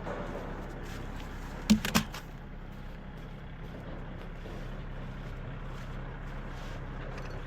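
A steady low mechanical hum, with two sharp knocks in quick succession about two seconds in.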